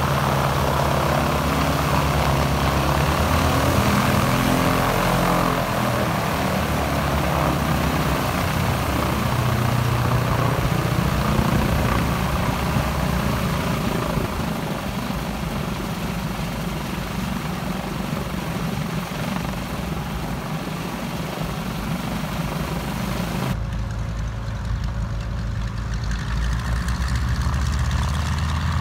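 Propeller aircraft engine running steadily at low taxiing power, a low throbbing note under a haze of propeller and exhaust noise. About 23 seconds in the sound changes abruptly, the upper hiss dropping away, as at a splice in the added soundtrack.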